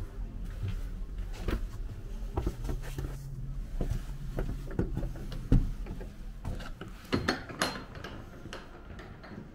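Irregular knocks and clicks in a small room, the sharpest about halfway through and a quick cluster a little later, over a low steady hum that fades out in the first half.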